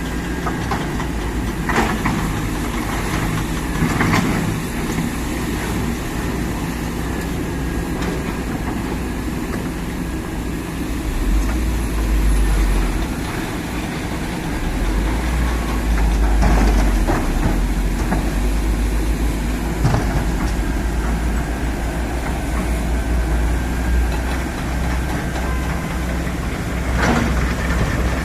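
Kobelco SK200 excavator's diesel engine running steadily with a deep rumble, with several short knocks scattered through.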